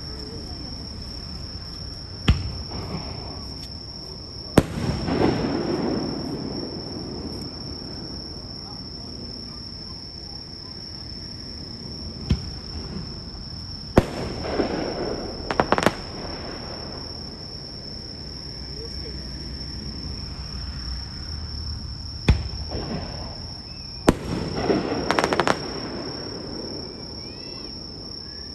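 Aerial fireworks shells bursting: about eight sharp bangs at irregular intervals, several followed by a rumbling echo and crackle lasting a second or two. A steady high insect trill runs underneath.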